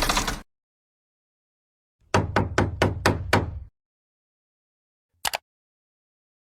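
A quick run of six sharp knocks, about four a second, lasting under two seconds. A single short click follows a little over a second later.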